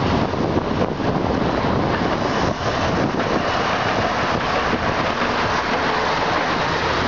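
Steady street traffic noise as a tram rolls past on its tracks among passing cars, an even rush with no single sound standing out.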